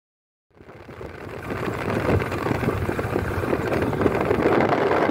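Wind buffeting the microphone and road noise from a moving vehicle. It fades in from silence about half a second in, then stays steady.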